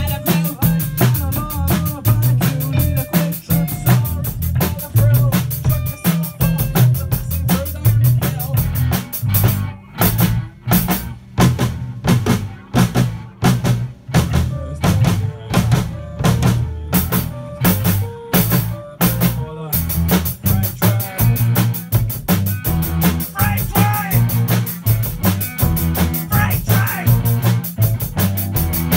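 A rock band playing a song together in a small rehearsal room: drum kit, electric bass and electric guitars over a steady beat. About ten seconds in, the cymbals drop out for some ten seconds, leaving separate drum hits about twice a second, then the full band comes back in.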